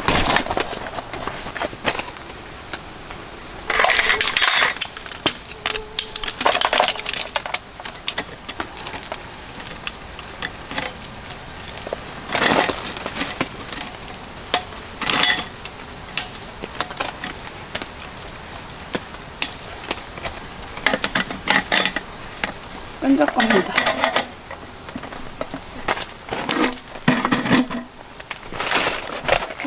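Folding camp chair and folding camp table being set up: the metal frame poles clatter and clink into place, with fabric rustling, as a string of separate knocks and rattles.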